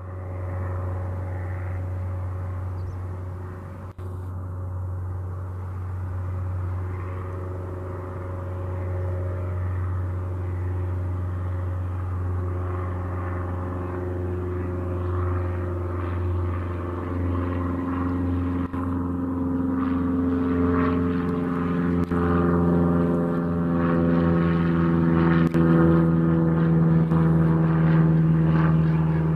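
Cessna 172 Skyhawk SP's four-cylinder piston engine and propeller running, rising in pitch and getting louder over the last part.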